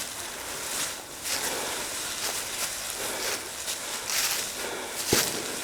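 Dry leaves crunching and rustling in irregular strokes, a few a second, as people move through a leaf-covered forest floor.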